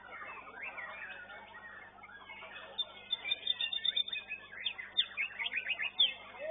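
White-rumped shama (murai batu) singing: after a quieter start, a rapid high trill about three seconds in, then a run of quick sweeping whistles that is loudest near the end.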